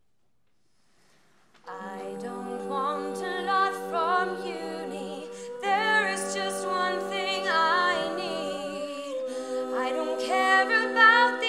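Female a cappella group singing in close harmony, starting about two seconds in: several voices hold sustained chords with a moving melody on top, shifting to new chords twice.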